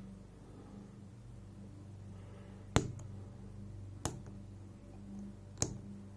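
Three sharp clicks, about a second and a half apart, from a lock pick working the pins of a Zeiss Ikon WSW lock cylinder while a pin stays binding and will not set. A faint low hum runs underneath.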